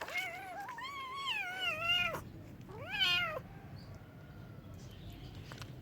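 Domestic cat meowing twice: a long, wavering meow of about two seconds, then a shorter meow that rises and falls.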